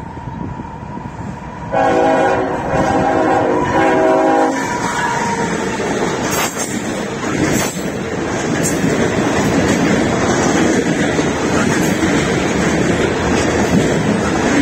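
Diesel locomotive of a CSX freight train sounding its horn, a chord of several notes, in three quick blasts about two seconds in. Then the train passes close by as a steady rumble of tank cars and covered hoppers, with the wheels clacking over rail joints.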